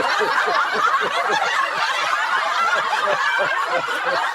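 A group of people laughing without pause, several voices overlapping.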